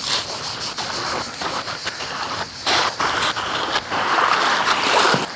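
Seawater splashing and sloshing as a freshly caught fish is rinsed by hand in the shallows, irregular and getting louder about halfway through.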